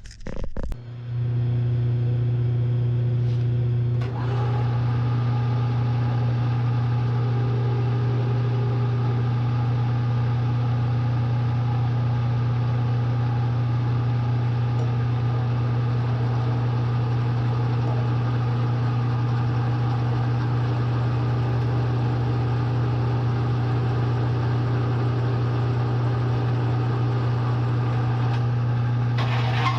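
Bridgeport milling machine's electric motor started about a second in and running with a loud, steady hum. There is a brief dip in level about four seconds in.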